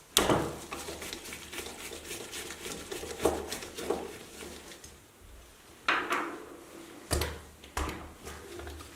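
Metal parts of an antique calculator clicking and clattering as it is handled during repair. A rapid run of clicks comes first, then several separate sharper knocks, some briefly ringing.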